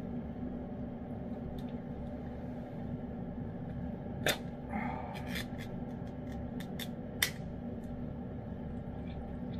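Steady low hum, with a string of sharp clicks and a short smacking noise from about four to seven seconds in: a cat licking and chewing pâté from a small can held up to its mouth.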